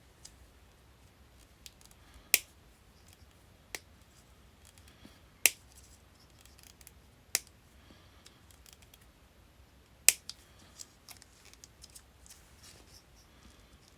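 Brittle old hard plastic wiring-harness cover being cut and cracked off by hand: about five sharp snaps a second or two apart, with small ticks and crackles between them.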